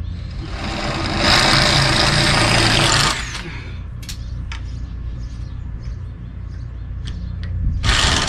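Cordless drill-driver running in two bursts, backing fasteners out at the top of an RV awning: one run of about two and a half seconds starting about half a second in, a few light clicks, then another run starting near the end.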